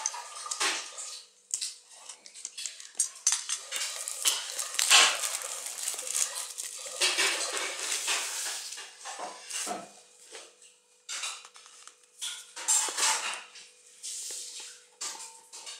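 Clear plastic shrink-wrap crinkling and rustling in irregular bursts as it is pulled off a cardboard phone box and handled.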